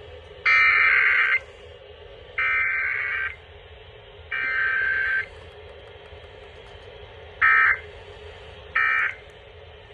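Emergency Alert System SAME digital data bursts, the harsh buzzing modem-like tones that carry an alert's coded data over a radio broadcast: three bursts of about a second each, evenly spaced, then three shorter bursts.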